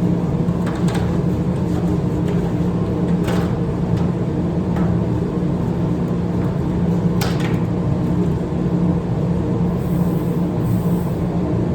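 A steady machine hum that runs unchanged, with a few faint clicks over it.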